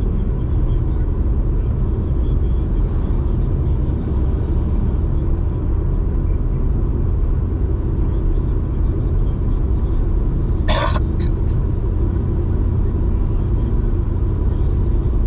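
Small car (Toyota Aygo) driving at a steady speed: continuous low engine and tyre rumble with no gear changes, and one brief knock a little under eleven seconds in.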